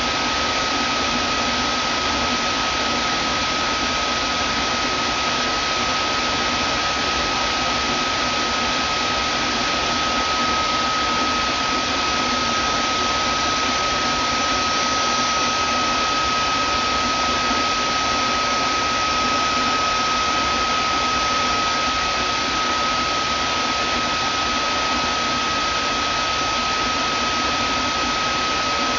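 Vacuum cleaner motor running steadily, a constant rushing of air with a high steady whine over it.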